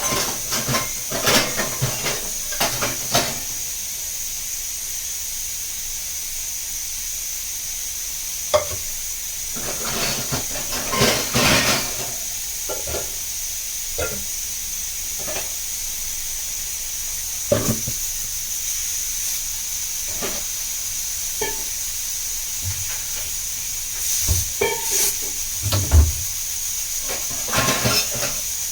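Food sizzling steadily in a pan on a gas stove, with a spoon scraping and knocking against the pan now and then as it is stirred.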